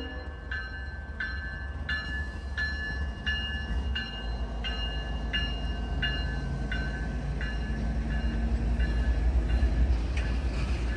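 A bell ringing at a steady pace, about three strokes every two seconds, growing fainter toward the end, over the low rumble of a passing freight train.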